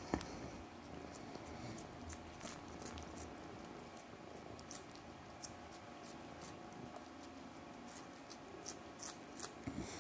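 Siamese cat licking a lickable paste treat from a sachet: faint, irregular wet clicks of the tongue, with one sharper click right at the start.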